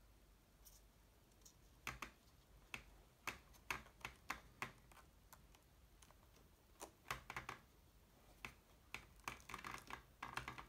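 Scattered sharp clicks and light rustling of hands pressing a helmet intercom speaker into the ear pocket of a full-face helmet and tucking the foam liner around it, growing busier near the end.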